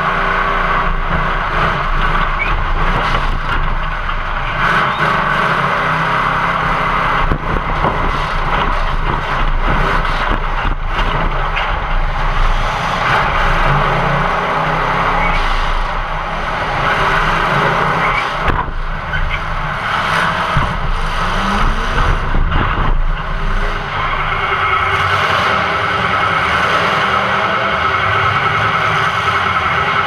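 Demolition derby car's engine running and revving, heard from inside the stripped-out cabin, with a few sudden knocks of metal-on-metal hits.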